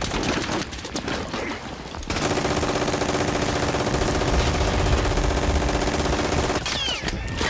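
Battle gunfire: scattered shots and impacts, then about two seconds in a machine gun fires one long, very fast continuous burst that stops shortly before the end.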